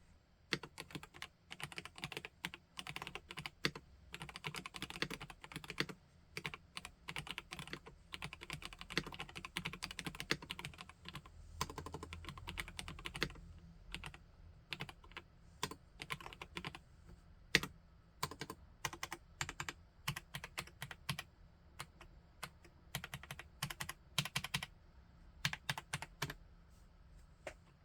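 Typing on a PK x BIOI Command 65 custom mechanical keyboard with SP-Star Dolch-style keycaps: fast, continuous keystrokes for about the first half, then slower, more spaced-out keystrokes with short pauses.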